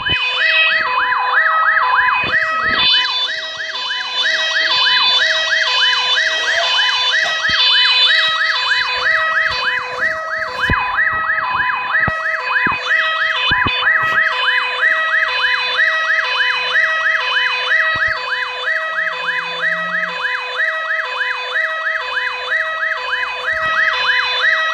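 ABSL emergency vehicle's electronic siren sounding continuously and loudly: a fast repeating rising-and-falling yelp, several sweeps a second, over an alternating two-tone hi-lo.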